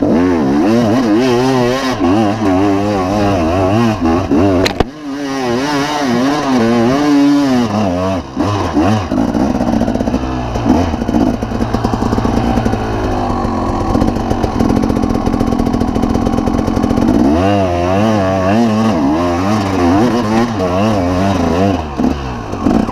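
Dirt bike engine revving up and down in quick, repeated surges as the bike works its way up a steep, rocky slope. Midway it holds steadier for several seconds, then the surging resumes.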